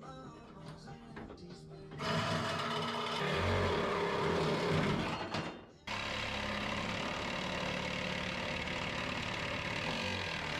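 A power tool running loudly on sheet steel, in two long stretches with a sharp break between them, over background music. It is most likely cutting out the old floor pan.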